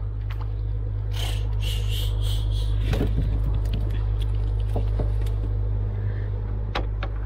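Steady low drone of a boat's diesel engine running, with a brief splash about a second in and light knocks against the wooden canoe as a small fish is hauled aboard on a handline.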